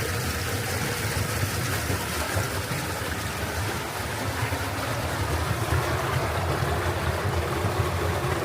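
Fast-flowing water rushing steadily along a levada irrigation channel.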